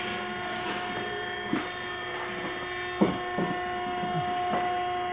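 Steady multi-tone machine hum of a big hardware store's interior, with a few brief knocks and snatches of faint voices.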